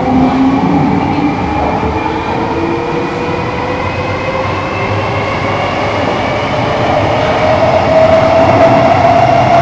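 Singapore MRT electric train running, heard inside the carriage: a steady rumble of wheels and running noise under a motor whine of several tones that climbs slowly in pitch as the train speeds up, growing louder toward the end.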